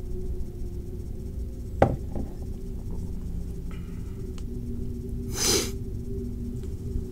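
Steady low hum of the room and recording, with one sharp click a little under two seconds in and a brief hiss about five and a half seconds in.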